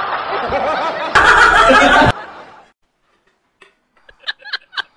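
A woman laughing in short, quick bursts, about four a second, starting about four seconds in. Before it comes a louder, dense stretch of overlapping sound that cuts off suddenly about two seconds in.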